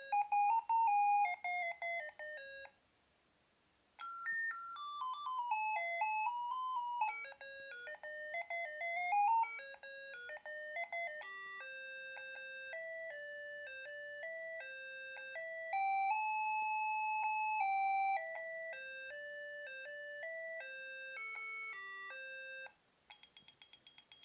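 OUTWIT kids alarm clock's small speaker playing its electronic alarm tunes in turn: simple chiming melodies with a short pause between tunes. Near the end it switches to a rapid high-pitched beeping alarm tone.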